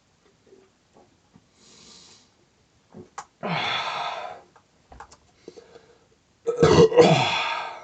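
A man belching after drinking beer, twice: a burp about three and a half seconds in, then a louder, longer one about a second before the end, each falling in pitch.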